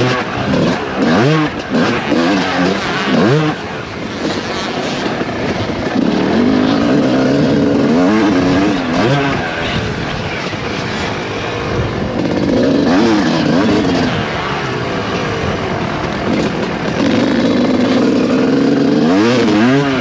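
Suzuki RM250 two-stroke motocross bike's engine, ridden hard: its pitch climbs and drops again and again as the throttle is opened and the gears are shifted, with a few stretches held at steady revs.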